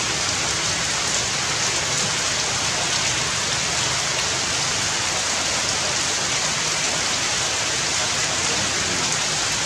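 Steady rain falling on forest foliage.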